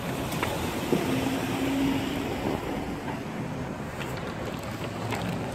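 Outdoor parking-lot ambience: wind rumbling on the phone's microphone over a wash of vehicle noise, with a steady hum that comes in about a second in and fades out a couple of seconds later.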